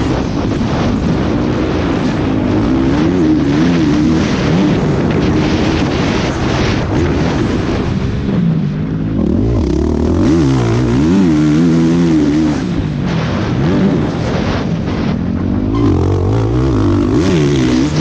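KTM motocross bike's engine being ridden hard, its pitch rising and falling over and over as the rider opens and shuts the throttle through the turns and gears, over a steady rush of noise, heard from the rider's helmet camera.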